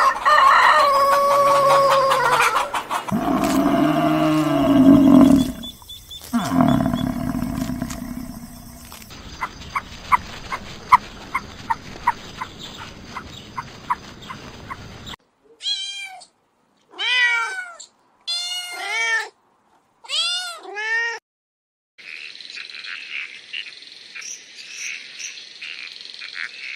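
A string of different animal calls, one after another: a loud drawn-out cry that drops in pitch about a second in, a run of quick even clicks, a handful of short peeps that rise and fall, and a thin high chattering hiss near the end.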